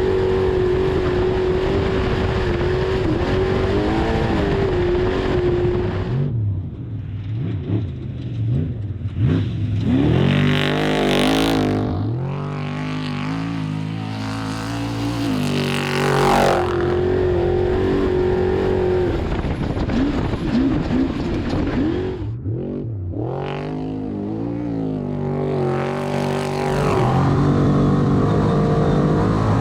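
Off-road desert race truck engine running hard: a steady high-revving note for several seconds, then revs rising and falling over and over. The sound changes abruptly several times, as one clip cuts to the next.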